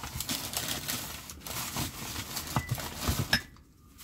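Rummaging through a box of stored belongings: steady rustling and clatter of handled items, with a few sharp knocks near the end before it stops.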